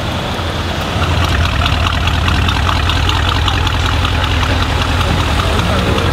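Mercedes S63 AMG's twin-turbo V8 idling through an aftermarket HMS exhaust: a steady, deep drone that grows louder about a second in and then holds level.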